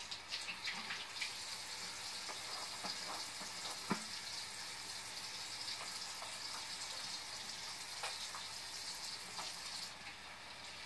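Water running from a bathroom sink tap in a steady hiss as hands are rubbed and rinsed under the stream, with one sharp click about four seconds in.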